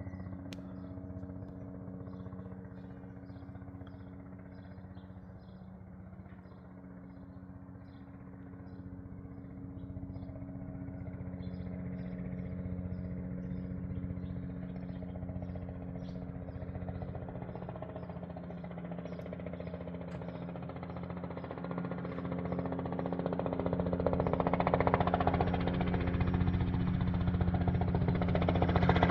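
Robinson R66 helicopter, its main rotor and Rolls-Royce RR300 turbine making a steady low hum and beat, growing steadily louder as it comes in to land.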